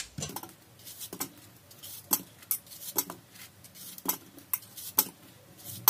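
A knife cutting apple chunks over a stainless steel pot, making an irregular string of sharp clicks and knocks as the blade and the falling pieces hit the pot and the potatoes in it.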